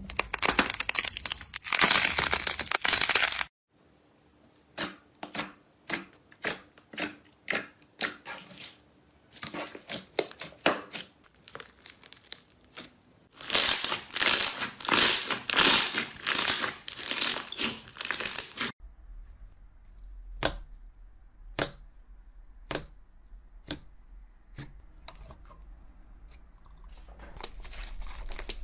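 Slime being squeezed, stretched and poked by hand: stretches of dense crackling and sticky clicking, then after a break a run of sharp, separate pops.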